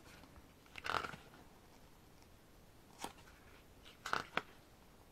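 Paper pages of a photobook being turned by hand: a soft swish of a page about a second in, then a few light paper flicks and ticks from the turning pages.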